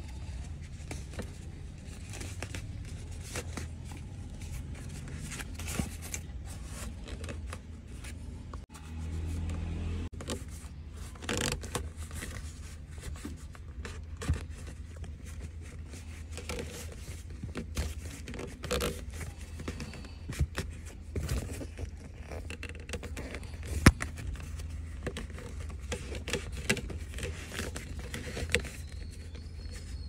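Scraping, rustling and clicking of a fabric handbrake boot and its plastic trim being worked by hand onto a car's handbrake lever, over a steady low hum. One sharp click stands out late on.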